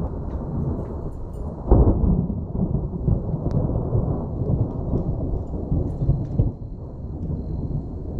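Thunder: a loud sudden clap just under two seconds in, followed by deep rolling rumble that surges a few times and eases off.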